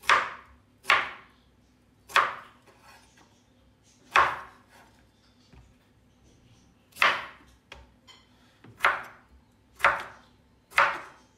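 Chef's knife slicing beets on a bamboo cutting board: about eight separate cuts, each ending in a sharp knock of the blade on the wood. The cuts come roughly a second apart, with a longer pause near the middle.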